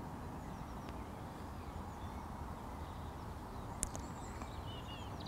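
Outdoor lakeside ambience: a steady low background rumble with faint birds chirping now and then, and a single sharp click just before four seconds in.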